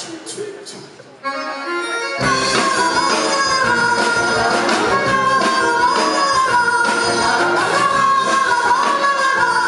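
Live band instrumental passage in a light 1950s-style Soviet pop song: after a quieter first second, the full band comes in about two seconds in, with drum kit and electric guitars under a held melody line on accordion.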